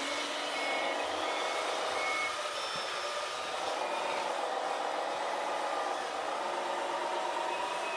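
Electronic sound modules in scale RC construction machines: a simulated diesel engine runs and revs up and down, and a reversing beeper gives about four short beeps in the first two seconds.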